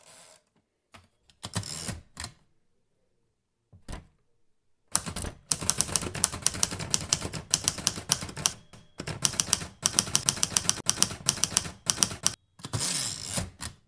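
Typewriter keys clacking: a few single strokes at first, then long runs of rapid keystrokes, and a longer rasp near the end.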